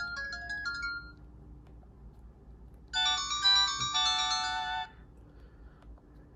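Kyocera DuraXV phone playing message alert tones through its speaker: a quick run of short beeping notes ends about a second in. About three seconds in, a brighter chiming alert of stacked tones plays for nearly two seconds.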